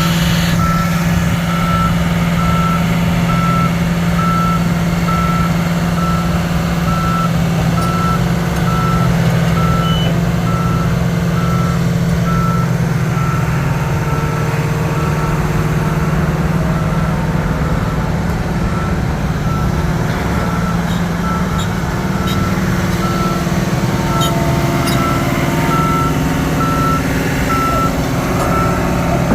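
John Deere 750K bulldozer's diesel engine running steadily while its backup alarm beeps at an even pace: the dozer is reversing.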